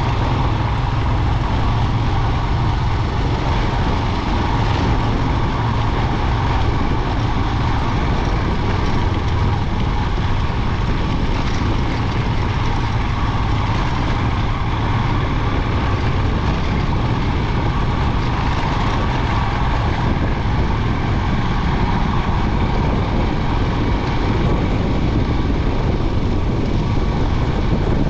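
Royal Enfield Himalayan 411's single-cylinder engine running steadily while the motorcycle is ridden, under a constant rush of riding noise.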